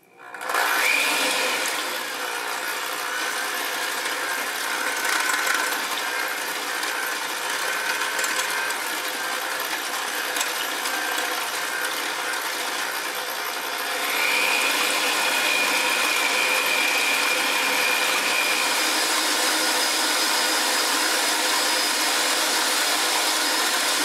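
Electric hand mixer running steadily, its wire beaters whisking thin liquid batter in a glass bowl. It gets a little louder about 14 seconds in.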